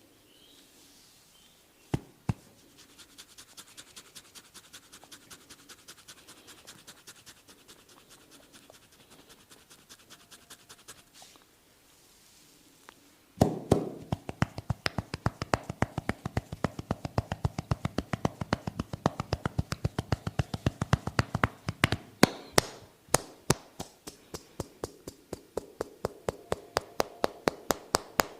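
A massage barber's hands tapping rhythmically on a person during an Indian head massage. Two sharp smacks come first, then light, quick taps; about halfway through, the taps turn loud and fast, several a second.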